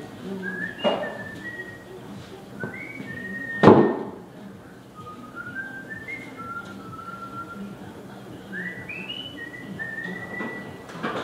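A person whistling a tune, clean held notes stepping up and down. A single sharp knock sounds about four seconds in, louder than the whistling.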